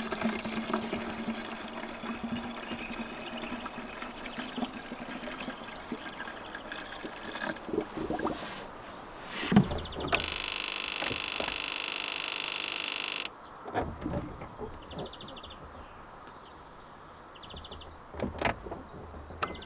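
Liquid poured from a jug into a car's coolant expansion tank, splashing and gurgling as it fills for about six seconds. Several knocks follow, the loudest about nine and a half seconds in. Then a loud, even hiss starts suddenly, runs for about three seconds and cuts off, leaving faint ticks.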